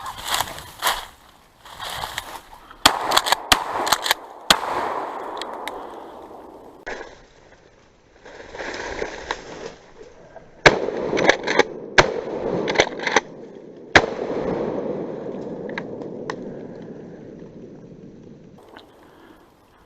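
Twigs and brush snapping and crackling, with rustling, as someone pushes through thick cover. The snaps come irregularly, several in quick runs.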